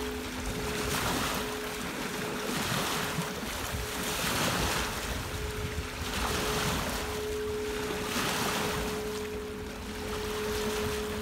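Quartz crystal singing bowls ringing with two steady held tones, one higher and one lower, as a mallet is circled around a bowl's rim; the lower tone fades about eight seconds in. Underneath, lake waves wash onto a pebble shore in surges about every two seconds, with wind.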